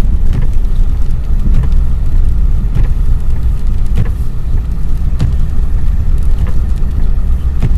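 Four-wheel-drive vehicle driving on a snow-covered road, heard from inside the cabin: a steady low rumble of engine and tyres, with a faint tick recurring about every 1.2 seconds.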